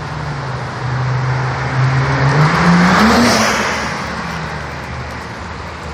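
Lexus IS V6 running through a Tsudo SP2 dual axle-back exhaust as the car accelerates up to and past the listener. The exhaust note climbs in pitch as the engine revs and is loudest as the car passes, about three seconds in, then fades and drops away.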